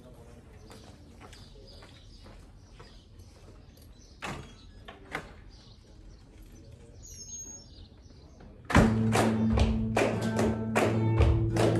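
Faint footsteps and a couple of knocks, with a bird chirping once, then flamenco guitar music starts suddenly about nine seconds in, loud and strummed in quick chords.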